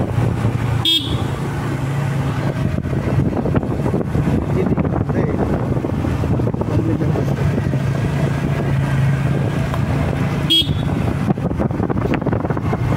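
Motorcycle engine running steadily under way, with wind and road noise on the microphone. A short horn beep about a second in and another near the end.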